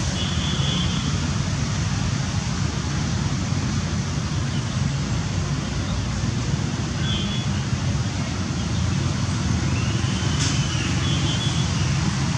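Steady low rumble of road traffic, with a few faint, short high chirps near the start, about halfway through and near the end.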